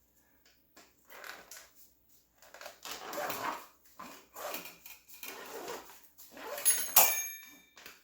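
Tire levers prying a mountain bike tire's bead off the rim: repeated scraping and rubbing of rubber against the rim, with a sharp metallic clink that rings briefly near the end.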